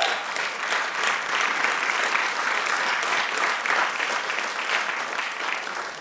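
Audience applauding, a dense crowd of clapping hands that tapers off near the end.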